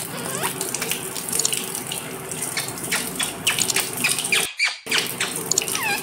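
Running water splashing over a caged rose-ringed parakeet being bathed, with a scatter of short squeaky calls from the bird. The sound drops out briefly about three-quarters of the way in.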